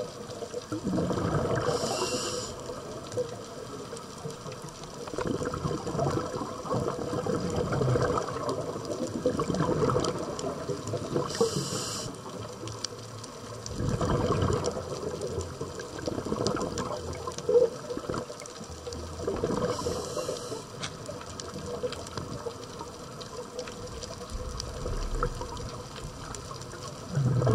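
Underwater water noise heard through a camera housing: a rushing, bubbling wash that swells and fades every few seconds, with a short high hiss roughly every nine seconds.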